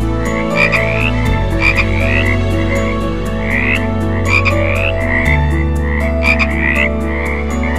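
Frog croaking: short, rising chirp-like calls repeated about twice a second, some in quick pairs.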